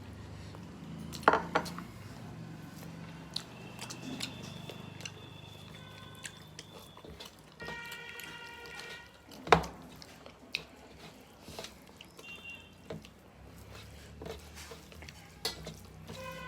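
Sounds of eating at a meal: scattered clicks and knocks of dishes and cutlery, with one sharp clink about nine and a half seconds in, over a low steady hum. Faint high tones come and go now and then.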